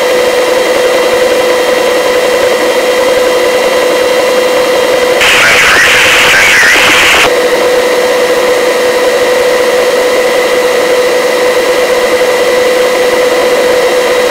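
Helicopter cabin noise, loud and steady: the drone of the turbine and rotor with a constant whine. About five seconds in, a burst of radio static lasts about two seconds.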